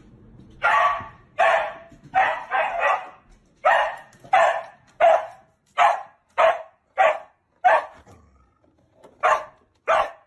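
A dog barking over and over: more than a dozen sharp barks in quick succession, with a short pause about eight seconds in.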